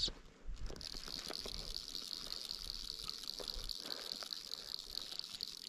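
Water trickling and lapping, with a steady high hiss.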